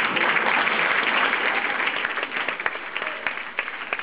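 Audience and cast applauding, a dense patter of many hands clapping at once, fullest in the first couple of seconds and thinning slightly after.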